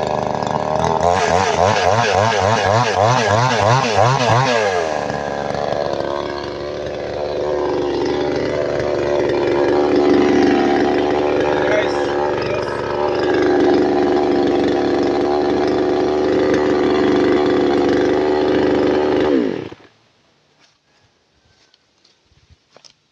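Two-stroke chainsaw engine revving rapidly up and down for a few seconds, then running steadily at high speed with a few dips in pitch. It cuts off suddenly near the end, leaving only faint ticks.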